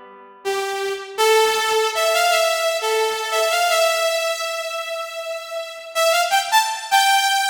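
Sampled electric piano or synth keyboard sound playing a few sustained notes, each held for about a second or more.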